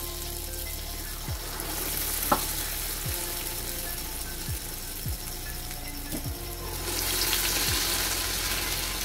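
Urad dal batter fritters deep-frying in hot oil in a kadai: a steady sizzle that swells about two seconds in and again near seven seconds as more batter goes in, with one sharp click about two seconds in.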